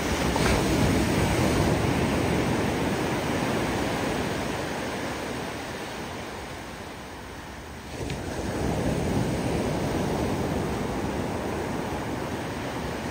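Ocean surf breaking on the beach and around pier pilings: a wave breaks at the start and its wash slowly fades over several seconds, then another breaks about eight seconds in and washes out.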